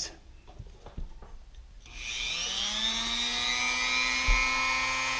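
Dremel rotary tool with a sanding drum switched on about two seconds in, its high whine rising as the motor spins up and then running steadily at speed. A light handling knock about four seconds in.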